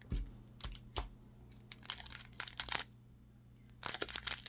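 Foil booster-pack wrapper crinkling in short, irregular bursts as it is handled, with a brief lull about three seconds in.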